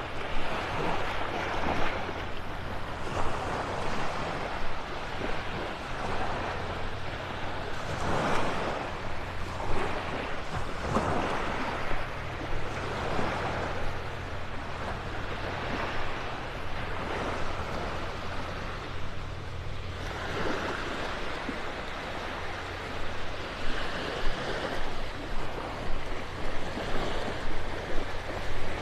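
Small surf of the Gulf of Mexico washing over the shallows and beach in a steady hiss that swells and fades every second or two.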